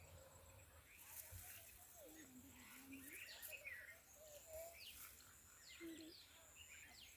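Faint birdsong: several birds chirping, with repeated quick downward-sweeping notes.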